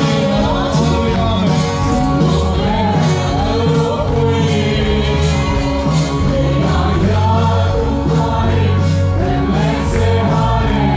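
Gospel song sung by many voices over instrumental backing, with a steady drum beat.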